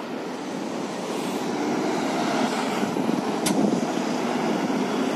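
City street traffic: a steady rumble of passing vehicles, growing a little louder after the first second, with one short sharp click about three and a half seconds in.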